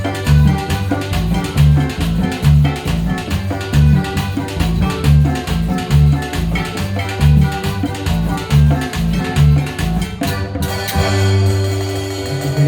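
Latin dance band music with a steady bass and drum beat. About ten seconds in the beat drops out and a held low note and chord ring on. Percussion comes back in near the end.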